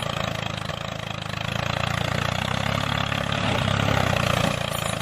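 An engine running steadily at low speed, with an even low rumble throughout.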